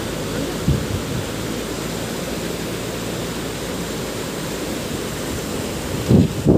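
Steady rush of a fast mountain river's whitewater rapids. A brief low thump comes about a second in and another near the end.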